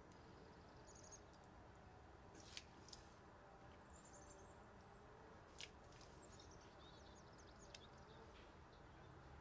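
Near silence: faint room hiss with a few soft clicks and some faint high chirps.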